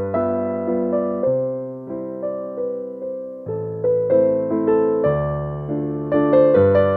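Background music: a slow, gentle keyboard melody, piano-like notes struck about twice a second and each fading away.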